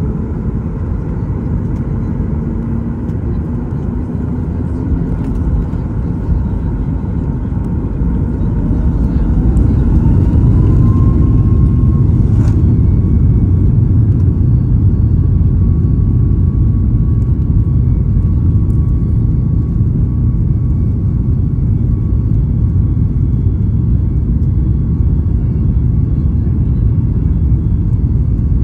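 Boeing 737 MAX 8's CFM LEAP-1B turbofan engines heard from inside the cabin over the wing, spooling up to takeoff thrust. A rising whine comes about eight to eleven seconds in, then a steady, loud engine roar with low rumble of the takeoff roll, and a single click about twelve seconds in.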